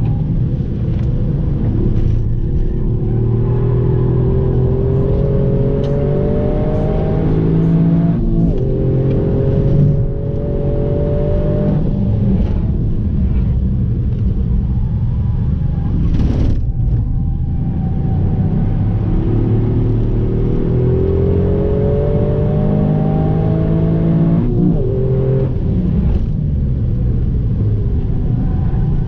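Toyota Yaris engine heard from inside the cabin at track pace. It pulls up through the revs with a rising pitch and drops sharply at gear changes, about eight and twenty-five seconds in, over a constant rumble.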